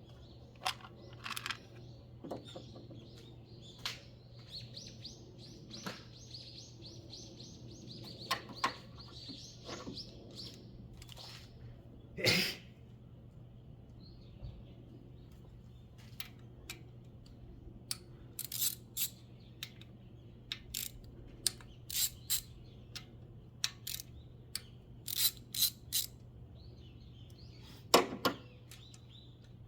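Scattered sharp clicks and clinks of hand-tool work, loudest twice (about 12 s in and near the end) with a quick run of them in the second half, over birds chirping and a steady low hum.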